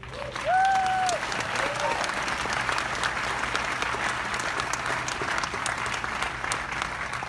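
Audience applauding. A single voice lets out a held whoop about half a second in, then a short second one.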